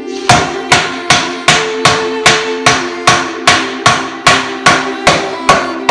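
A steady run of about fifteen evenly spaced hammer blows on wood, roughly two and a half a second, driving a pine table rail home into its joint.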